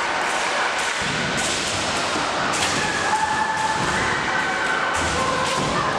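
Kendo bout on a wooden sports-hall floor: sharp cracks of bamboo shinai and stamping feet several times, with long drawn-out kiai shouts from the fencers.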